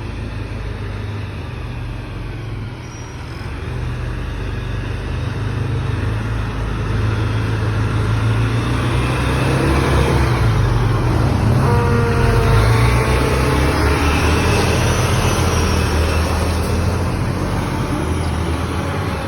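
Fire ladder truck's diesel engine approaching and passing: a heavy low drone that builds to its loudest around the middle and then fades. A short horn note sounds as it comes closest.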